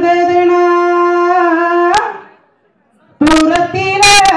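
Nadaswaram holding one long steady note for about two seconds, ended by a sharp knock. After a brief gap the note starts again, with several sharp knocks.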